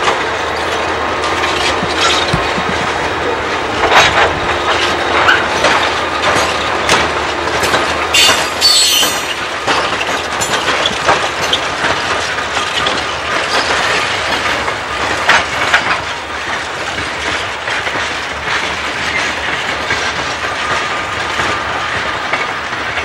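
CSX freight train rolling past at close range, diesel locomotives and hopper cars, its steel wheels clacking over the rail joints. A brief high-pitched squeal comes about eight seconds in.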